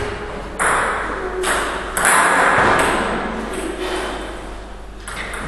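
Celluloid-type table tennis ball clicking against the table and bat, several sharp knocks at uneven intervals, each ringing on in the echo of a large hall.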